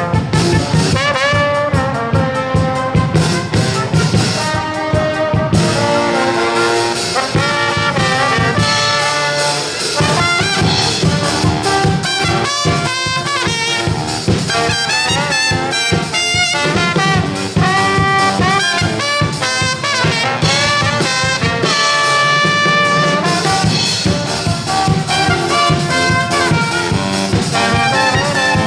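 Brass ensemble playing, with trumpets and trombones carrying a lively melody over a steady low bass line.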